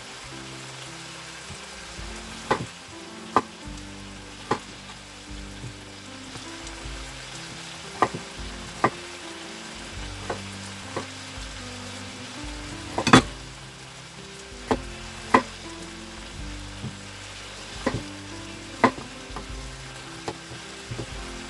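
Chef's knife cutting raw potatoes on a wooden cutting board: sharp knocks of the blade meeting the board, irregular, about one every second or so, with one louder knock about halfway through.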